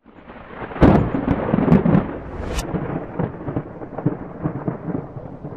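Thunder sound effect: a sudden sharp crack about a second in, more cracks over the next two seconds, then a rolling rumble that slowly fades.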